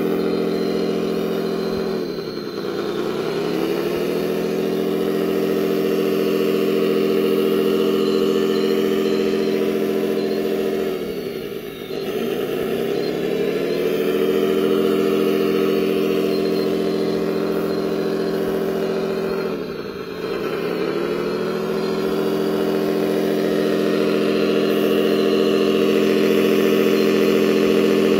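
Radio-controlled wheel loader running with a steady engine-like drone. Three times the pitch drops sharply and climbs back over a second or two.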